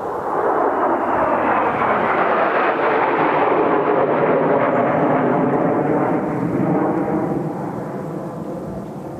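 Kawasaki T-4 jet trainers flying past, a loud jet roar that swells about a second in, peaks mid-way, and fades after about seven seconds, with a falling swoop in pitch as they go by.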